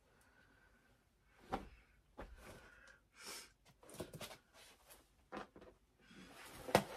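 Clothes being handled and rustled in a pile, with a few soft knocks and a sharper click near the end.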